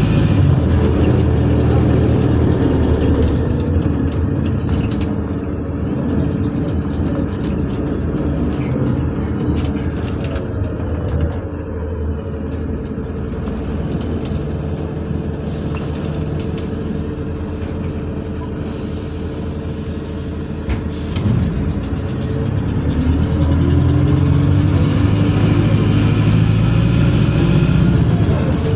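City bus engine and drivetrain heard from inside the passenger cabin while the bus drives, louder at the start and again near the end, quieter in between.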